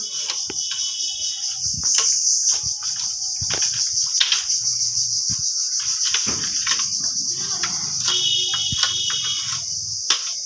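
Bamboo strips being split and chopped with a knife against a wooden board: irregular sharp knocks and cracks. A steady high insect drone runs underneath throughout.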